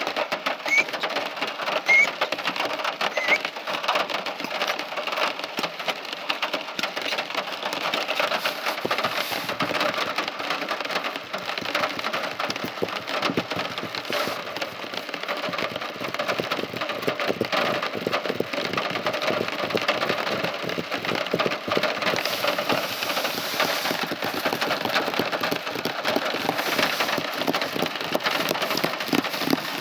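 Steady rain falling on a surface, a dense, even crackle of many small drop impacts.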